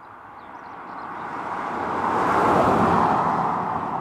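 A 2007 Mercedes-Benz CL600 with a twin-turbo V12 driving past at speed, a mix of engine and tyre noise. The sound grows as the car approaches, peaks about two and a half seconds in, then fades as the car pulls away.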